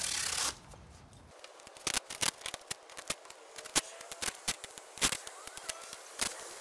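Masking tape ripped off the roll, then torn and pressed down around a car's headlight lens. A short loud rip at the start is followed by scattered sharp crackles and clicks.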